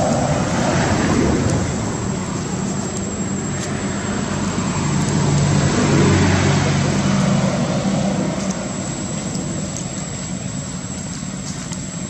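Motor traffic: a vehicle's engine hum swells and fades as it passes, loudest about six seconds in, over steady road noise, with a thin high whine above it.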